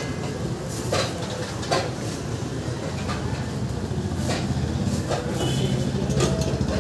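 Roadside food-stall ambience: a steady low rumble with a few short knocks and clinks of utensils at the griddle.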